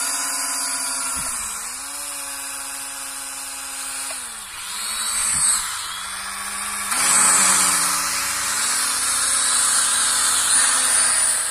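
Small folding quadcopter drone's motors and propellers whirring while it is held in the hand, a buzzing whine that dips and rises in pitch several times as the motor speed changes, getting louder about seven seconds in.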